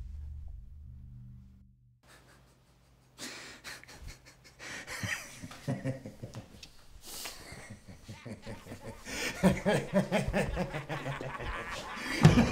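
A low steady drone fades out, and after a near-silent pause a person's heavy panting breaths mixed with snickering laughter start up, growing louder toward the end.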